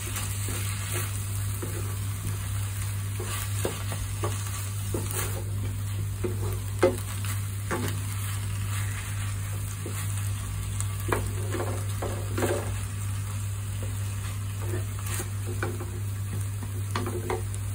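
Macaroni with spinach and mushroom cream sizzling in a pan while a wooden spatula stirs it, with scattered scrapes and knocks against the pan, the sharpest about seven seconds in. A steady low hum runs underneath.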